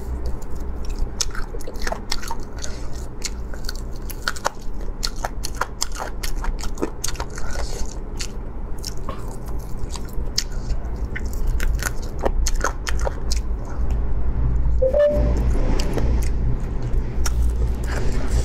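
Close-up eating sounds of a person biting and chewing bony braised chicken pieces: irregular crunchy clicks and wet smacks, over a steady low hum.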